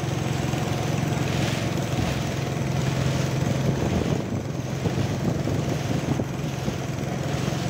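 Outboard motor of a small river boat running steadily under way, a constant low hum with a rushing noise over it.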